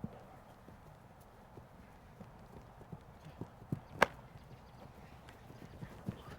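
Faint, irregular thumps of players' feet running during an ultimate frisbee game, with one sharp slap about four seconds in.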